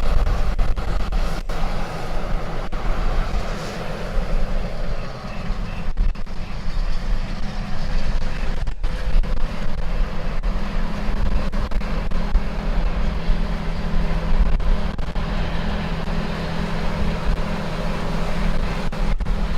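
John Deere 9660STS combine harvesting soybeans: a steady diesel engine drone with a deep low rumble, its hum firming up about halfway through.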